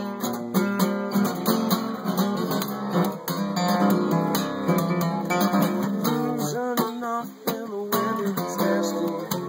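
Song instrumental break: acoustic guitar strumming steadily, without vocals, with some bending lead notes in the second half.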